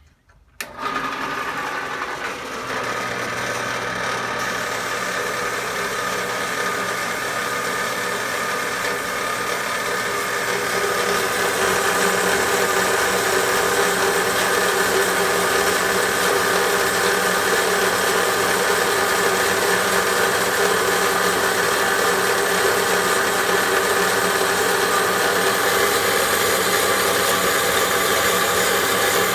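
Metal band saw switching on about half a second in and running steadily, its blade cutting through a metal workpiece clamped in the vise; the sound grows louder about ten seconds in and then holds steady.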